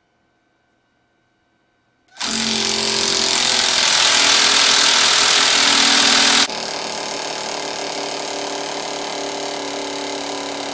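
A battery impact wrench hammering a bolt, loud, starting about two seconds in. About six and a half seconds in it gives way to a Uryu UDBP-A60 battery oil pulse wrench pulsing the same kind of fastener, clearly quieter: the meters read about 97 dB for the impact tool against about 72 dB for the pulse wrench.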